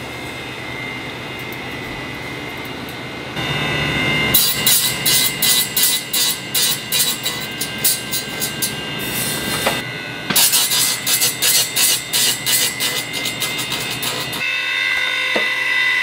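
Weld grinder's abrasive wheel grinding down the welded joint of a steel band sawmill blade, in rapid rhythmic strokes of about three a second. A steady machine hum comes first; the grinding starts about three seconds in, breaks off briefly near ten seconds and stops about fourteen seconds in.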